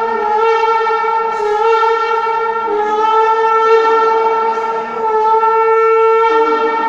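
Shofar (ram's horn) blown in one long, steady note, held without a break, with a rich, brassy set of overtones.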